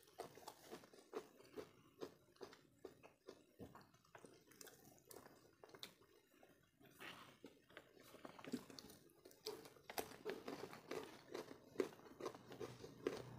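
Two people eating rice and curry with their hands: faint chewing and wet mouth smacks with small irregular clicks, along with fingers working the rice. A low steady hum sets in near the end.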